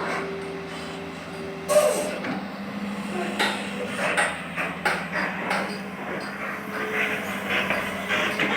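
Excavator's diesel engine running steadily, with a higher whine for the first second and a half and scattered knocks and clunks, the sharpest about two seconds in, as it loads soil into a truck.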